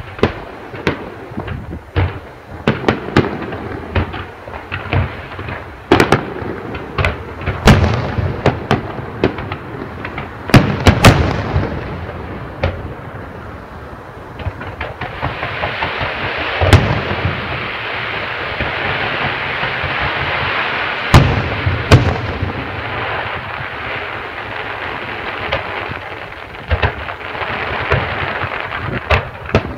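Fireworks display: a rapid, irregular run of bangs and pops, with several louder booms. Through the middle stretch a continuous hiss runs under the bangs.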